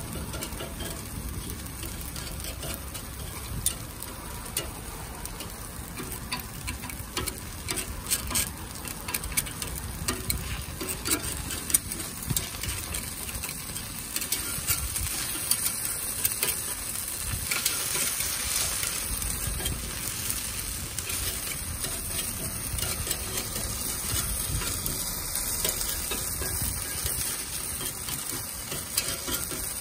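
Takoyaki batter sizzling on a takoyaki grill plate, with frequent light clicks and scrapes of a metal pick turning the balls in their wells. The sizzle grows a little louder partway through.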